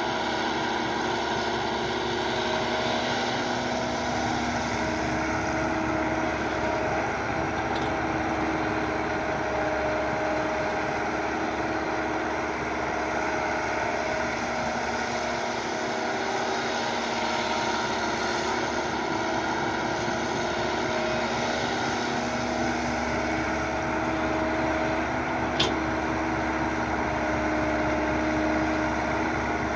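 Diesel engine of a Kobelco SK120 Mark 3 hydraulic excavator running steadily while it digs and loads soil, its pitch shifting only slightly. A brief sharp click near the end.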